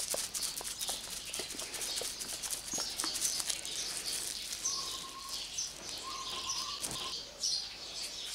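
Glass mason jar of heavy cream shaken by hand, the breaking cream sloshing and knocking inside: the sign that the butter is separating from the buttermilk. Repeated high chirps run in the background.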